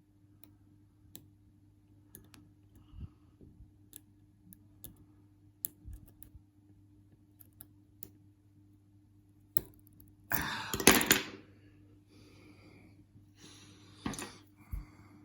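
Lock picks working inside a padlock: sparse, light metallic clicks, with a louder, longer scraping noise about ten and a half seconds in and a shorter one near the end.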